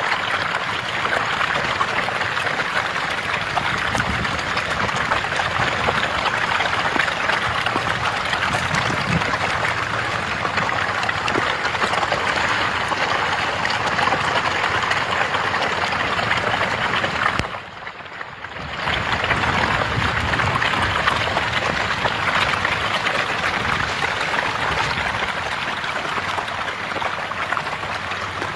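A dense school of fish thrashing at the water's surface, a steady churning splash of water. It drops away for about a second around two-thirds of the way through, then returns.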